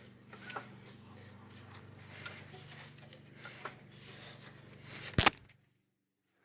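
Slant-six engine with its spark plugs out being turned over by hand: faint clicks and scrapes over a steady low hum. Near the end comes a sharp, loud double click, and then the sound cuts out.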